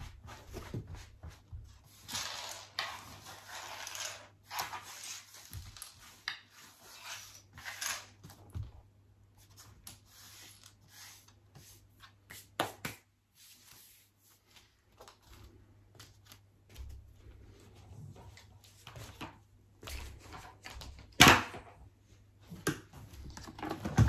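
Small plastic Lego bricks being raked out by hand and dropped onto a laminate floor: scattered light clicks and rustling, with a louder knock near the end.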